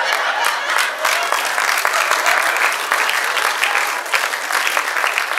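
Theatre audience applauding: a dense, steady run of many hands clapping.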